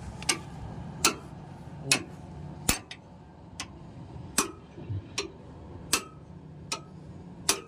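Regular hammer blows on steel, about ten sharp metallic knocks a little more than a second apart, driving a fitted part of the drill rig's rotary head into place. A low steady hum runs underneath.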